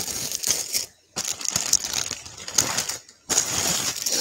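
Rustling and light clicking of costume jewelry being handled on a tabletop, as necklaces are picked up and moved, in three stretches with two short pauses.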